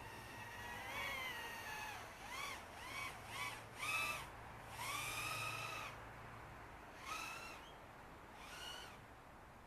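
An animal calling again and again, about eight short calls that rise and fall in pitch, with one longer call about five seconds in, over a faint low hum.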